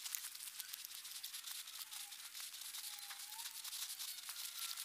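Hand auger bit boring through two lapped wooden sticks: a faint, steady fine crackling and scraping as the spiral cuts through the wood fibres.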